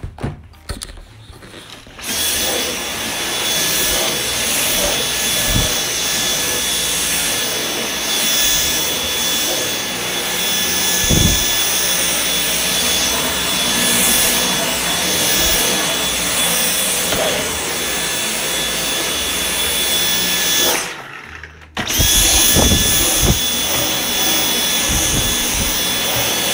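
Dyson cordless stick vacuum running over carpet: a steady high motor whine over rushing air. It starts about two seconds in, cuts off about twenty-one seconds in, and starts again a second later.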